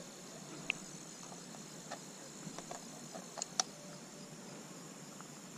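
Faint, steady high insect trill, with a few light snaps and rustles of dry brush underfoot.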